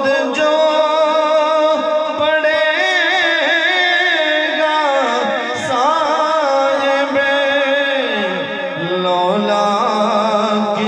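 A man singing a naat into a microphone, drawing out long wavering, ornamented notes over a steady held drone.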